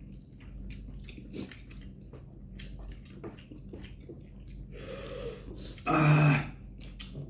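People eating spicy noodles: small clicks of chewing, slurping and utensils, a breathy exhale about five seconds in, then a short, loud voiced huff about six seconds in.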